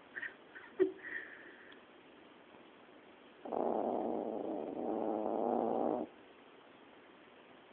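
Yorkshire terrier snoring in its sleep. A few faint clicks and snuffles come in the first second or so, then one long snore lasts nearly three seconds in the middle.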